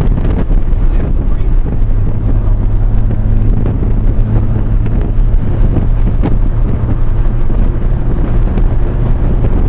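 Wind buffeting the microphone in a moving car, over steady engine and road noise with a low drone.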